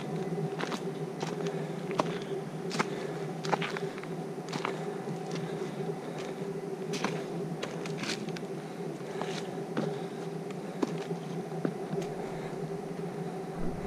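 Footsteps crunching on a woodland trail, irregular ticks about one to one and a half a second, over a steady buzzing hum held at one pitch.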